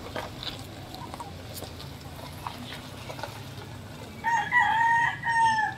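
A rooster crowing once, a drawn-out call starting about four seconds in, over the low running of the Toyota Fortuner SUV's engine as it drives off.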